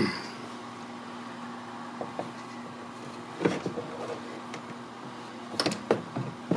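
Scattered light clicks and knocks of plastic parts and wiring being handled inside an open car door, with a cluster near the end, over a steady low hum.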